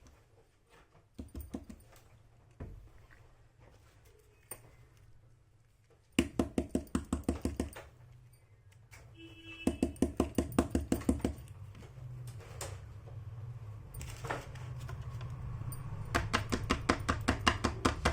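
Small plastic toy-kit pieces being handled. A few single clicks are followed by three quick runs of clicking, about eight clicks a second, near the middle and again near the end, over a low hum.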